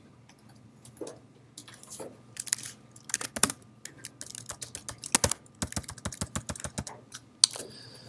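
Computer keyboard being typed on: irregular key clicks, with a fast, even run of key presses at about eight a second past the middle.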